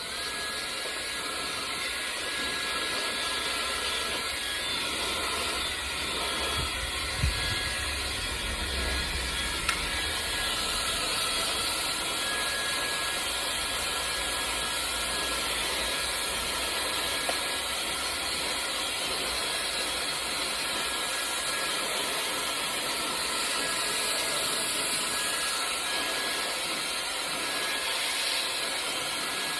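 Gamma+ XCell hair dryer running steadily: a constant rush of air with a thin, high motor whine held at one pitch. There are a couple of brief knocks a few seconds in.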